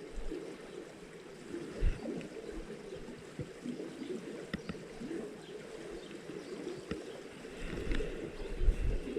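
Small mountain stream running and gurgling over stones, with a couple of short low thumps, about two seconds in and near the end.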